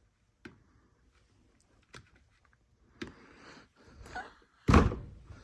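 Handling noises from a chainsaw being worked on: a few sharp clicks, some rustling, and one heavy thump near the end.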